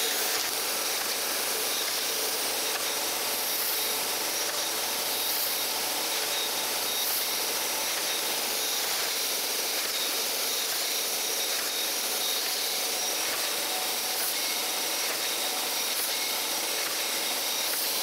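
Surface grinder wheel grinding across the face of a steel straight edge, a steady hiss of the wheel cutting as it takes a light cleanup pass of a couple of thousandths.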